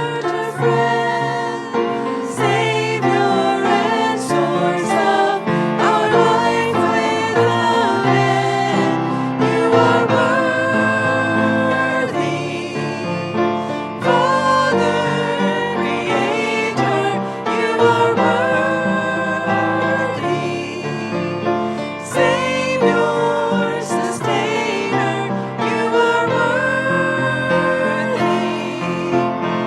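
Worship music: voices singing a song together over instrumental accompaniment.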